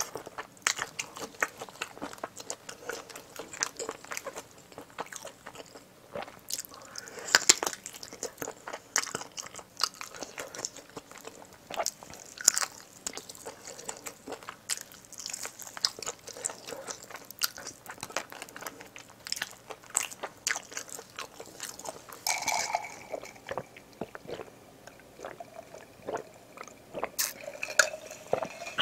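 Close-miked chewing of spicy braised pig's trotter (jokbal): an irregular, dense run of sharp mouth clicks and crunches as the meat and skin are bitten and chewed.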